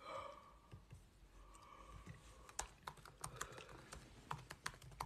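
Faint irregular tapping clicks of fingers on a phone, several a second from about two and a half seconds in, as a song is picked out.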